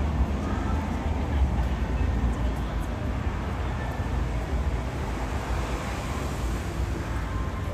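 City street ambience: a steady low rumble of passing traffic with the murmur of passers-by talking.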